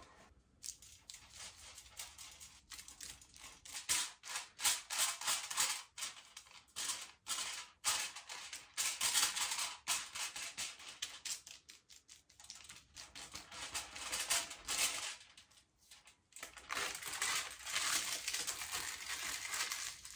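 Aluminium hair foils crinkling and crackling as they are folded around dyed strands and pressed flat against the head: an irregular run of sharp crackles with a couple of short pauses.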